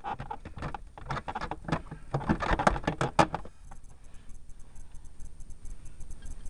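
Hands handling and fitting heater-box parts: a quick run of clicks, knocks and scrapes for the first three and a half seconds, then only faint scuffs.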